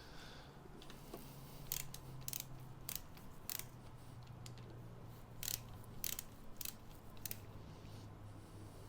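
Ratchet spanner clicking in short irregular runs, about eight sharp clicks, as motorcycle front-end bolts are worked loose.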